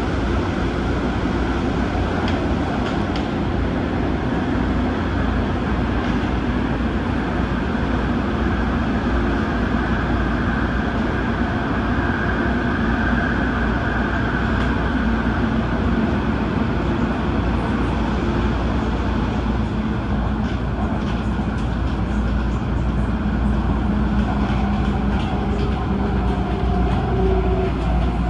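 Steady running noise of an MTR Tung Chung Line Adtranz-CAF electric multiple unit under way: a continuous rumble of wheels and running gear with a few faint clicks.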